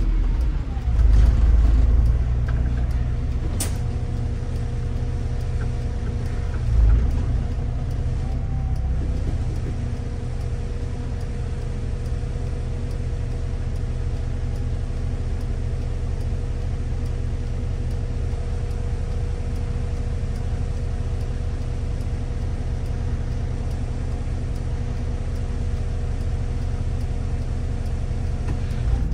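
A city bus driving, heard from inside at the driver's seat: a steady low rumble with a constant whine over it. There are two thumps, about a second in and about seven seconds in, and a sharp click at about three and a half seconds.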